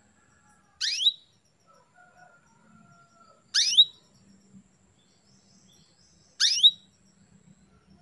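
Female canary calling: three short chirps about three seconds apart, each sweeping sharply upward in pitch.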